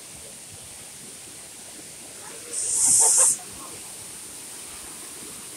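Steady rush of the Dry Falls waterfall, with one short, sharp hiss lasting under a second about two and a half seconds in.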